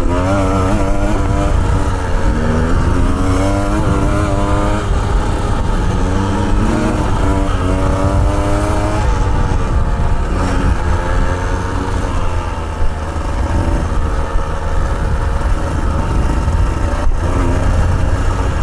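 Motorcycle engine running under throttle, its pitch rising and falling again and again as it revs and shifts, over a heavy low rumble.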